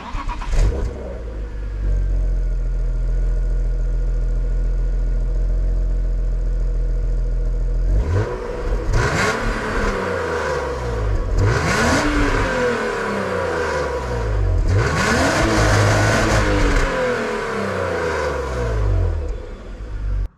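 BMW M52B25 2.5-litre straight-six breathing through its factory exhaust, cold: it fires up just after the start, settles into a steady idle, then is revved three times, the pitch rising and falling back to idle after each blip.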